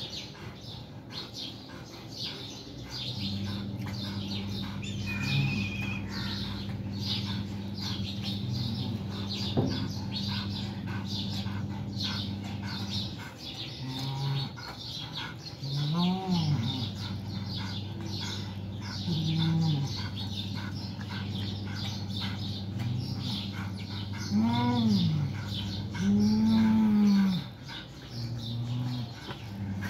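Two cats in a fighting standoff, growling low and letting out drawn-out yowls that rise and fall in pitch. The yowls grow louder in the second half. This is the threat call of cats squaring off before or between fights.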